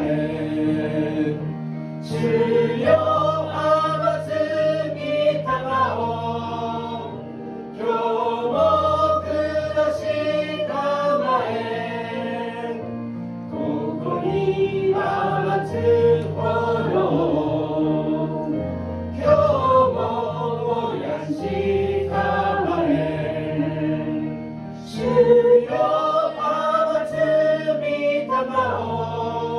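A woman singing a Japanese hymn into a microphone over instrumental accompaniment with held bass notes, pausing briefly between phrases.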